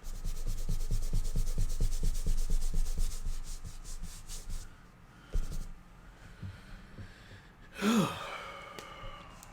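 Drawing tool scratching back and forth in quick strokes, about eight to ten a second, for the first four seconds or so, then tailing off. A short voiced sound falling in pitch comes about eight seconds in.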